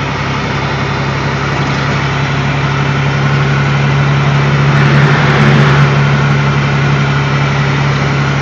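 A 2001 International 9400's Detroit Diesel Series 60 inline-six diesel running loud through an 8-inch straight-pipe exhaust. The steady note swells about halfway through, then eases slightly.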